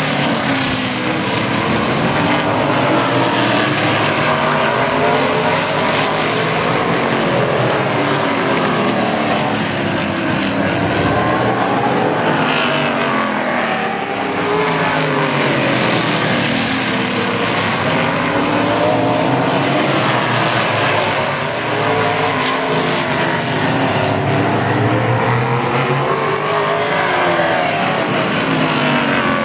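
A pack of stock car engines racing on a short oval track, several at once, their pitch rising and falling as cars pass and accelerate through the turns.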